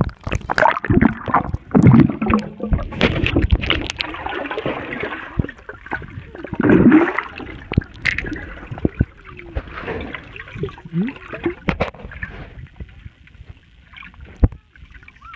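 Swimming-pool water sloshing and gurgling around a submerged camera, heard muffled, with many sharp knocks and splashes; the loudest surges come about two seconds in and again about seven seconds in.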